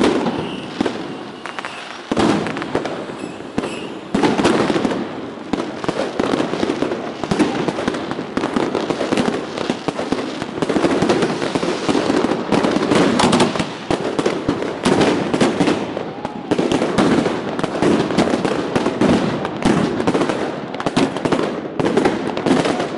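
Fireworks and firecrackers going off at close range, a continuous rapid crackle of many bangs and pops overlapping one another.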